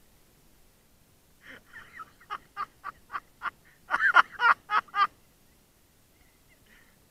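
Waterfowl calling: a run of about a dozen short calls, roughly three a second, growing louder toward the end before breaking off.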